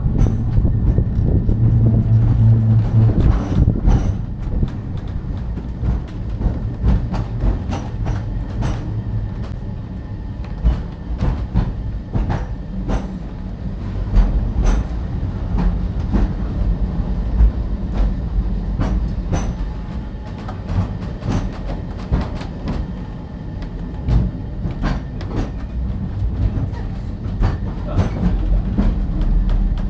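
Great Orme Tramway car, cable-hauled, running down its track: a steady low rumble with frequent irregular clicks and rattles of wheels on rail.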